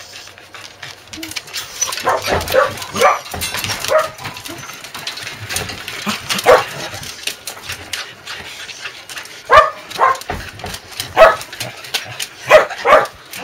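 Corgis barking excitedly, a few short barks at a time, with light clicking and rattling in between.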